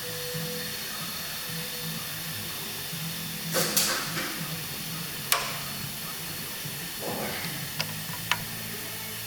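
Steady hiss with a faint low hum, broken by a few short clicks and brief rustles of something being handled, the loudest about three and a half seconds in.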